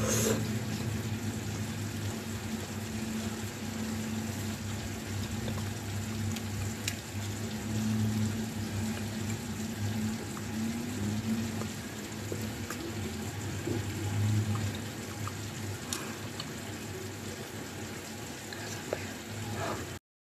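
Steady room background with a continuous low hum and a few faint, sharp clicks; it cuts off abruptly near the end.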